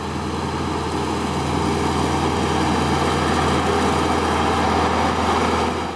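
LS XR4040 compact diesel tractor running steadily under load while brush hogging through tall grass, getting gradually louder as it comes closer.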